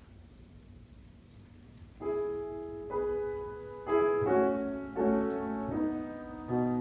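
Quiet room tone for about two seconds, then a piano starts playing slow chords, each struck and left to ring, roughly one a second.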